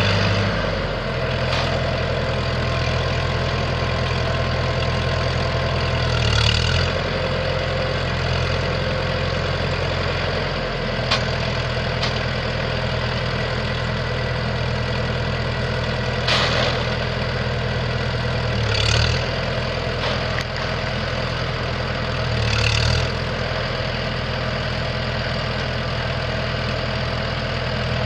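A 1966 John Deere 2020 tractor's four-cylinder gas engine idling steadily, with a few short swells in its sound.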